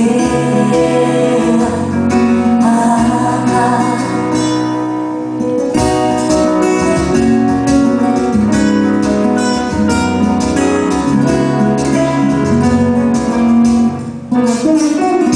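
Live band music led by acoustic guitar, playing on after the last sung line of the song. The sound breaks off for a moment near the end before the band comes back in.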